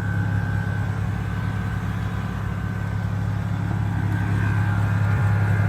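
A combustion engine running steadily at idle, a low even drone with no change in speed.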